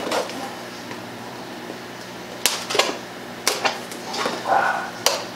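A small cardboard box being cut open: a blade slits the packing tape and the flaps are pulled apart. Several sharp rips and crackles come from about two and a half to five seconds in, over a steady low hum.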